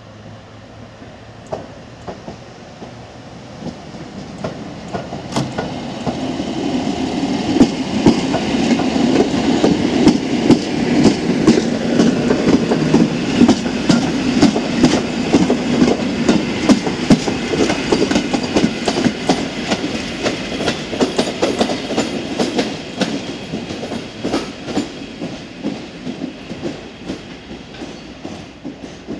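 Class EN57 electric multiple unit running past and away. Its wheels clatter over rail joints and points in a quick run of clicks over a steady rumble that builds to a peak about halfway, then fades as it moves off.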